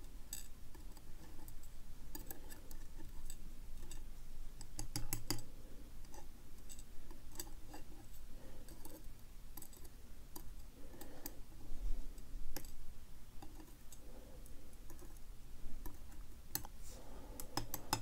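Faint, irregular light metallic clicks of steel tweezers setting small lock key pins down into a metal pinning tray, some in quick little clusters.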